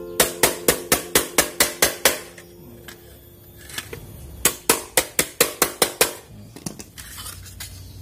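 Rapid tapping on a metal motorcycle number plate's folded edge, about five taps a second, each with a short metallic ring. The plate's rim is being knocked down over its backing plate. Two runs of taps, with a pause of about two seconds between them.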